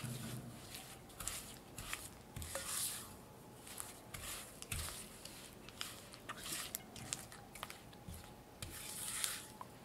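Rubber spatula mixing granulated sugar into softened cream cheese in a glass bowl: repeated gritty scraping and rubbing strokes against the glass, with a few light clicks.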